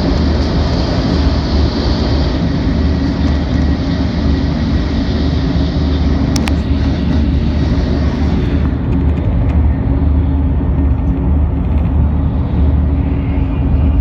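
Steady rumble and rushing noise inside a 700 series Shinkansen running at speed. There is a single sharp click about six seconds in, and the hiss thins a little past halfway.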